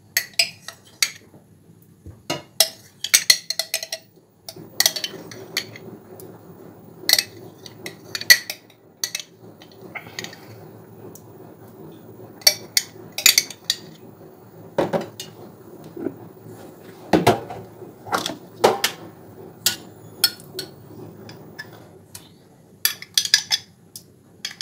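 Metal spoon clinking and knocking again and again against a jar and the rim of a stainless steel pot as sour cream is scooped out and tapped off into the pot.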